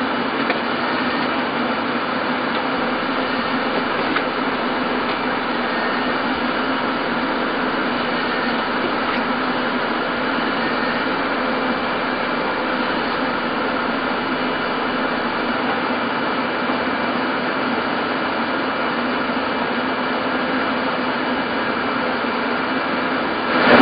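Steady hum and hiss of the International Space Station service module's fans and life-support machinery, with several faint steady tones, unchanged throughout.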